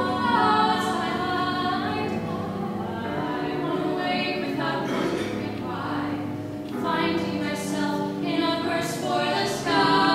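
Two young women singing a slow duet, holding long sustained notes.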